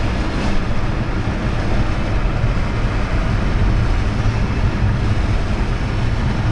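Road and engine noise inside a moving car's cabin: a steady low rumble under an even hiss.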